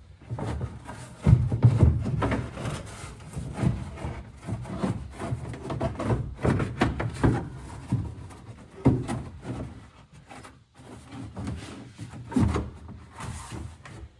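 Stiff cardboard trunk filler panel rubbing, flexing and knocking against the car's trunk as it is worked into place, in irregular scrapes and thumps, the loudest about a second in.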